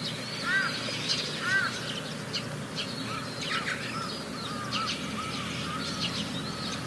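Several birds chirping and calling over one another, short arched whistled notes repeating throughout, over a low steady hum.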